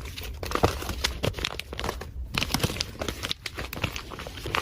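Plastic packaging crinkling and rustling in irregular crackles as small items are handled and packed.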